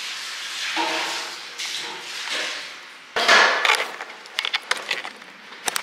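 Handling noise: a loud rushing sound about three seconds in, then a quick run of light knocks and clicks.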